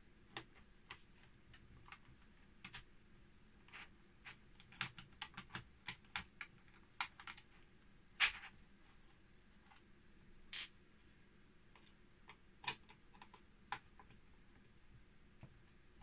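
Faint, irregular clicks and ticks of a Phillips screwdriver undoing the small screws that hold the steel plate of a ZX Spectrum Plus keyboard, with a few sharper clicks about eight and twelve and a half seconds in.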